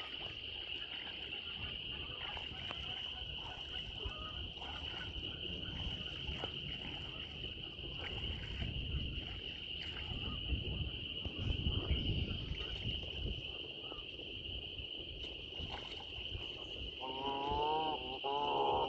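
A steady, high-pitched chorus of frogs, with irregular water splashing from geese bathing close by. About two seconds before the end, a series of louder wavering calls begins.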